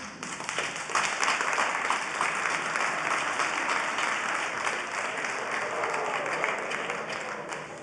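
Audience applauding, building up about a second in and easing slightly near the end.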